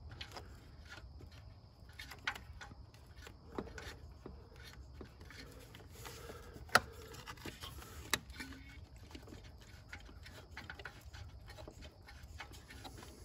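Quiet hand-work noise: scattered light clicks and taps of metal, wiring and tools as a new upstream oxygen sensor is threaded in by hand, with one sharper click about halfway through.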